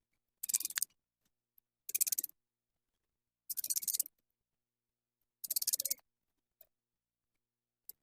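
A small screwdriver driving the screws of a Samsung Galaxy A30 back in during reassembly: four short bursts of rapid fine clicking, each about half a second long, a second or two apart.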